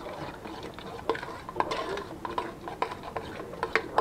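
A spoon stirring thick cooked pea mash in a stainless steel pot, clinking and scraping against the pot's sides in irregular strokes, two or three a second.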